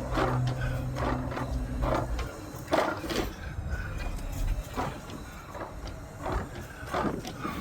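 A steady low hum that cuts off about two seconds in, with scattered knocks and rustles throughout.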